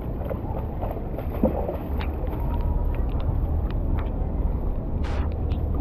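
Steady wind rumble on the microphone over outdoor ambience on a flooded street, with a few light ticks scattered through it.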